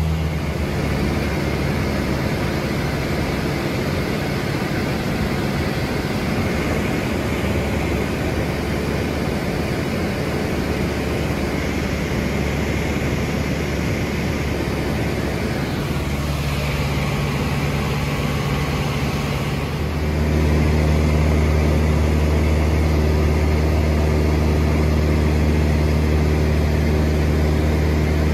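Cessna 162 Skycatcher's four-cylinder Continental O-200 engine and propeller droning steadily in cruise, heard inside the cockpit with airflow noise. About twenty seconds in, the drone gets louder and its low hum grows stronger.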